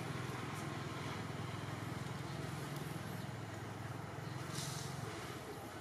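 Steady low rumble of a distant motor engine under outdoor background noise, with a brief rustle about four and a half seconds in.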